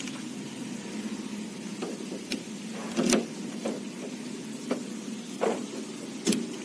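Key being worked in a car's driver door lock: a series of short mechanical clicks and clacks, with two louder clunks, one about three seconds in and one near the end.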